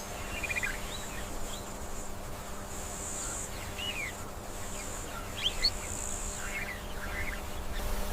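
Outdoor nature ambience: a thin, high insect buzz that swells twice, with a few short bird chirps scattered over a faint steady hum.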